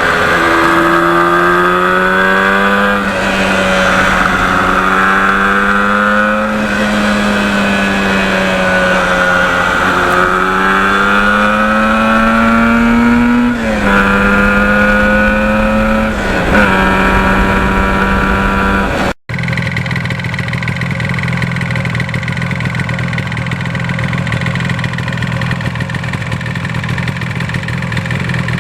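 1977 Yamaha RD400's two-stroke parallel-twin engine under way, accelerating through the gears: the pitch climbs steadily, drops at each shift and climbs again about five times. After a sudden cut, the engine runs at a steadier, lower pitch.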